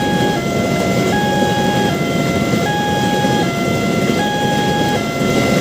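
Railway level-crossing warning siren sounding a two-tone alarm, switching between a higher and a lower steady note about every three quarters of a second, over a steady rushing noise.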